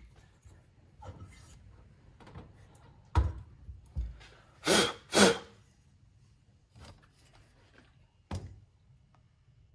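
Mira VG91 manual valve seat cutter and its pilot being lifted off a Mini cylinder head: a series of metal knocks and clunks, with two louder, longer handling sounds close together about halfway through.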